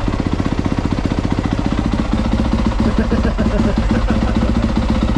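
Dirt bike engine idling steadily, a fast, even beat of exhaust pulses.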